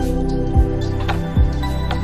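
Soft background music with sustained held chords and two deep drum thumps.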